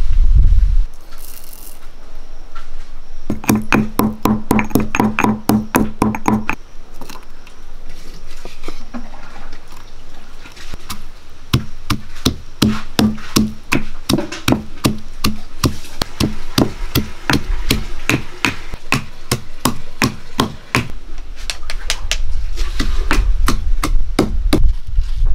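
Pestle pounding peppercorns, ginger and garlic in a stone mortar: repeated knocks at about two to three a second that stop about 21 s in. A low rumble follows near the end.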